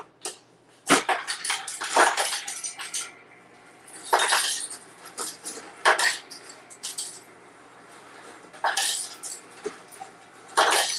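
A dog barking off and on, about six sharp barks a second or two apart.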